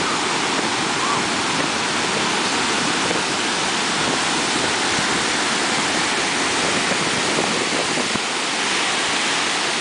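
Ocean surf breaking and washing through the shallows: a steady, unbroken rush of white water.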